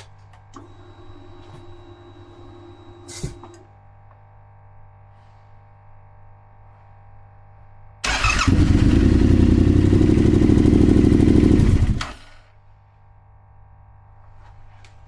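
Yamaha XSR700's 689 cc parallel-twin engine started and run for about four seconds, loud, then cut off sharply. The engine is being run after an oil change to pull the fresh oil through, so the sight-glass level drops. Before it, a faint steady electric whine lasts about three seconds and ends in a click.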